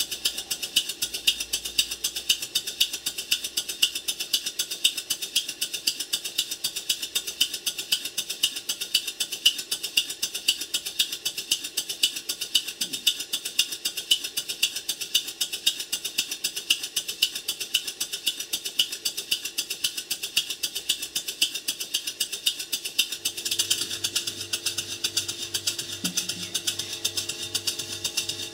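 Stuart Models Twin Victoria twin-cylinder model mill engine running slowly and evenly on its first test run, driven by compressed air, its exhaust giving rapid, regular chuffs. A low steady hum joins in near the end.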